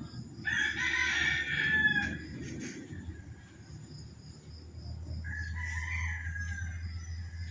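Rooster crowing twice: a loud crow about half a second in, then a fainter one about five seconds in. A steady low rumble runs underneath.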